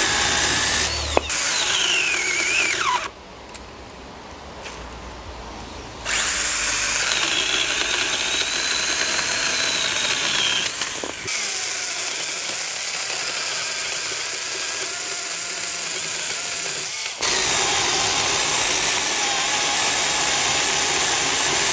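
Small 12-volt battery pruning chainsaws, a Stihl GTA 26 and a Milwaukee M12 FUEL Hatchet, running and cutting through small logs: the electric motors whine and the chains rasp through the wood. The motor pitch falls away about two seconds in, with a quieter stretch before cutting starts again, and the sound changes abruptly about eleven and seventeen seconds in as the saws change.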